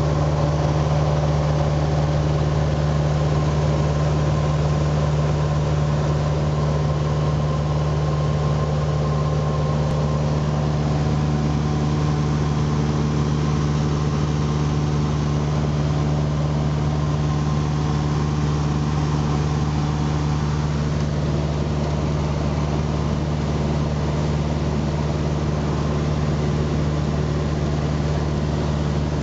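A Cessna 150's four-cylinder Continental O-200 engine and propeller running steadily in flight, heard from inside the cabin as a constant low drone.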